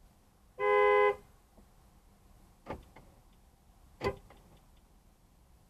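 Nissan Rogue's car horn sounding once, a steady tone of about half a second, as the car is located by its horn. Two sharp clicks follow, about a second and a half apart.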